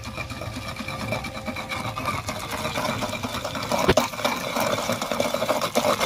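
Wooden pestle grinding and crushing fresh coriander and mint into a wet green paste in a stone mortar: a fast, continuous rough scraping and mashing, with one sharp knock about four seconds in.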